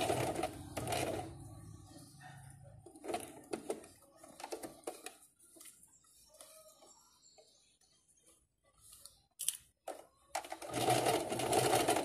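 Electric sewing machine stitching in short runs: one at the start, a brief one about a second in, and a longer run near the end. Between the runs there are quieter scattered clicks and rustles.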